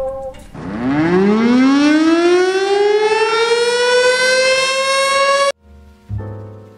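A siren winding up: one wail that rises steeply in pitch, then levels off, and cuts off abruptly about five and a half seconds in. Low notes of background music come in near the end.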